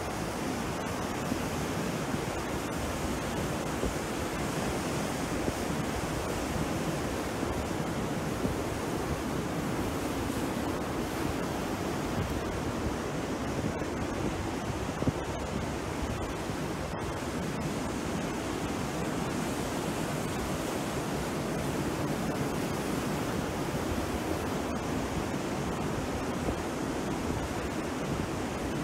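Choppy sea surf breaking and washing ashore in a steady, unbroken rush, with wind.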